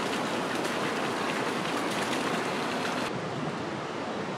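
Steady rushing outdoor noise, like running water or wind. About three seconds in the tone changes suddenly as the high end drops away.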